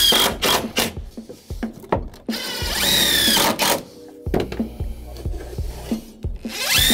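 Cordless DeWalt impact driver driving screws into cedar deck boards: its motor whines up in pitch for about a second and a half, once at the start and again a couple of seconds in, with sharp knocks and clicks in between.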